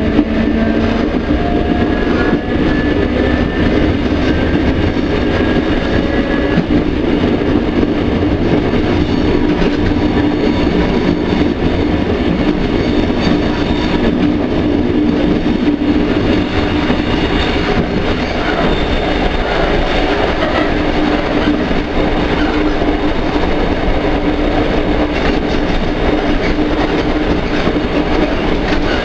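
English Electric DM/D class electric multiple unit running, heard from inside the car: a steady loud rumble of wheels on the track with a constant hum. A faint whine rises in pitch over the first six seconds or so.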